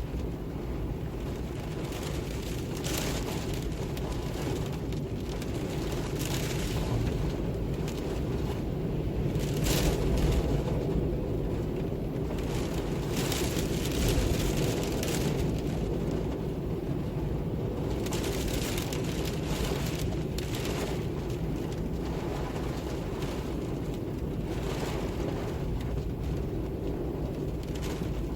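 Wind ambience: a steady low rumble with gusts that swell and fade every few seconds, loudest about ten seconds in.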